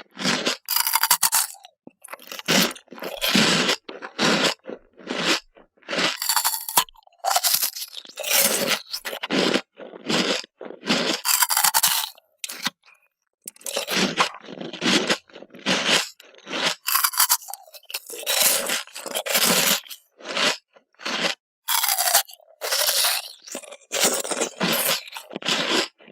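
Ice cubes being bitten and crunched between the teeth: a long run of loud, gritty crunches, each followed by a short pause.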